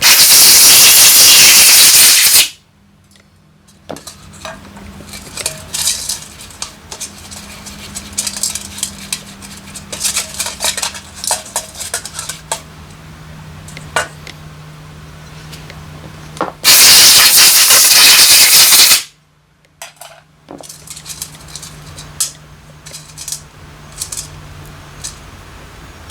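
Two loud hissing blasts of pressurised spray, each about two seconds long, one at the start and one about 17 seconds in, while a motorcycle carburetor is being cleaned. Between them, small metal carburetor parts clink and tap against each other over a faint steady hum.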